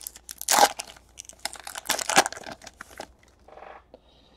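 A foil trading-card pack wrapper being torn open and crinkled in the hands: a run of crackling rustles, loudest about half a second in and again around two seconds, dying away after about three seconds.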